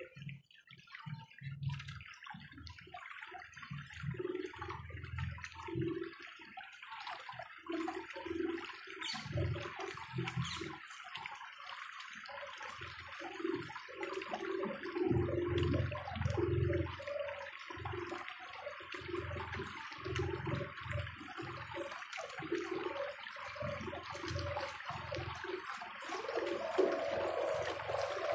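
Canal water sloshing and gurgling against the hull of a slowly moving boat, in irregular surges over a steady hiss of moving water.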